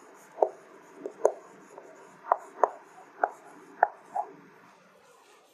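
Writing on a board: about eight short, sharp taps at irregular intervals, falling quiet near the end.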